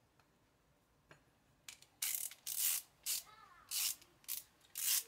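About six short hissing strokes, each a fraction of a second long, starting about two seconds in, from hand work on chainsaw engine parts.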